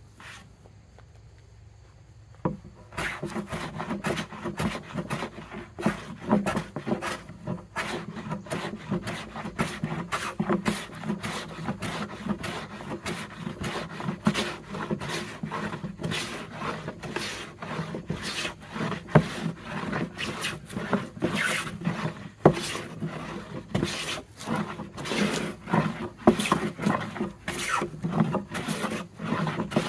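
Hand plane taking repeated strokes along a pine board, a shaving hiss on each pass, one stroke after another. The strokes start after a short pause about two and a half seconds in.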